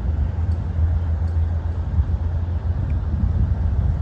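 A distant diesel locomotive engine rumbles steadily as the train approaches, with faint ticks over it.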